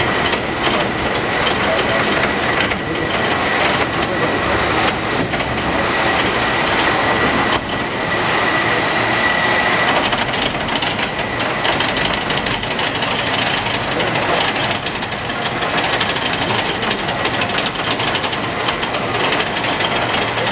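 San Francisco cable car on the Powell–Hyde line, rumbling and clattering along its track, with a steady high whine through the first half that fades after about ten seconds.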